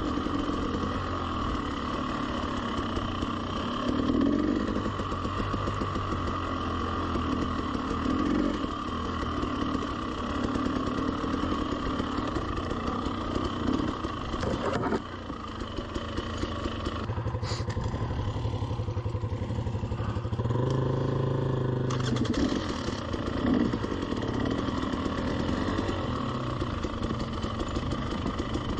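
300cc two-stroke enduro dirt bike engine running at low trail speed, with the throttle opened in short blips every few seconds. Past the middle it settles to a steadier, lower note for a few seconds before the blips resume.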